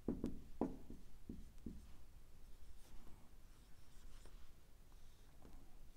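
Felt-tip marker writing on a whiteboard: a few light taps of the tip in the first two seconds, then fainter strokes.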